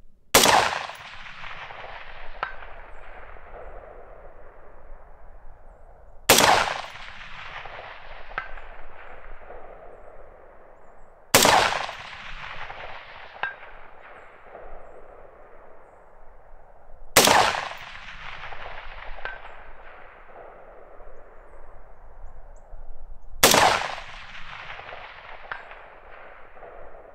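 Five single shots from an AR-15 rifle with a 20-inch barrel, about five to six seconds apart, each followed by a long echo rolling off over several seconds. About two seconds after each shot a faint ping comes back from the distant target, the sign of a hit.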